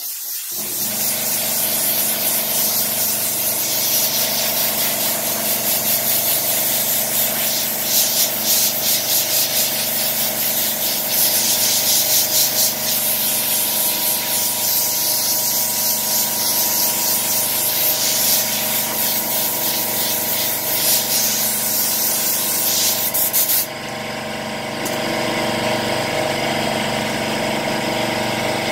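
Compressed-air blow gun hissing loudly as air is blown across freshly brushed grain filler to dry it. The hiss cuts off sharply near the end, and an air compressor keeps running steadily underneath throughout.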